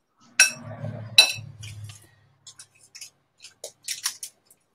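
Spoon clinking against a mixing bowl while stirring keto waffle batter: two sharp, ringing clinks under a second apart near the start, then lighter scattered taps.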